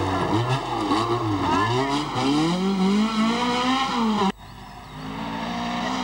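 Rally car engine revving hard on a gravel stage, its pitch swinging rapidly up and down as the throttle is blipped and lifted. About four seconds in the sound cuts off abruptly to a quieter car engine, its pitch slowly building.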